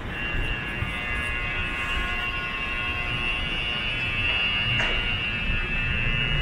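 A steady, high-pitched electronic buzzing tone sounding continuously over low street rumble.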